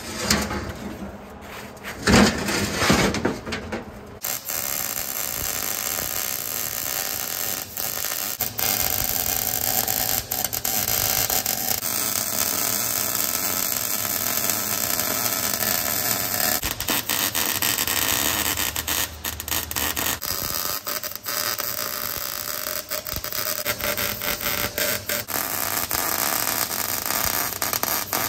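A few loud scrapes and knocks of steel being handled in the first few seconds, then a wire-feed (MIG-type) welder's arc crackling and sizzling steadily. The welder is joining a steel pipe saddle to a roll-off truck's hoist rail, and the arc briefly stops and restarts between beads.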